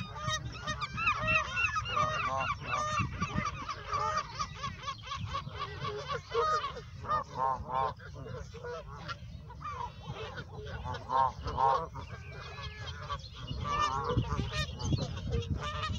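A flock of Canada geese honking, with many short calls overlapping and following one another.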